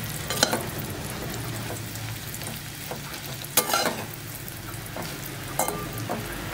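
Bread cubes sizzling as they fry in ghee in a metal pan, while a steel ladle stirs them and scrapes and knocks against the pan now and then, most sharply about three and a half seconds in.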